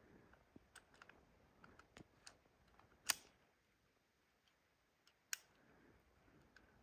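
Scattered small clicks from a cheap air gun being worked, with two sharper snaps about three and five seconds in, while no BBs are coming out of it.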